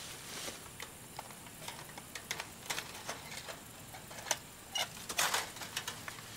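Woven-wire fence clinking and rattling as a wire gate is unhooked from its wooden post: irregular light metallic clicks, with a longer scrape about five seconds in.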